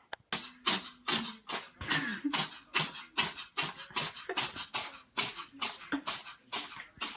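A pet sneezing in a rapid fit: a steady run of short, sharp sneezes, about two to three a second, starting a moment in.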